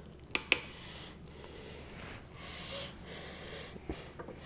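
Two light clicks in quick succession, then soft breaths.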